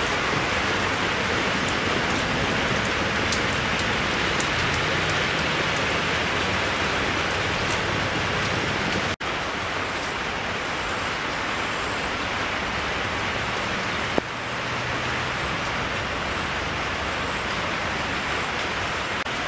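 Steady rain falling on wet ground and puddles. The sound drops out for an instant about nine seconds in, and there is one short knock about fourteen seconds in.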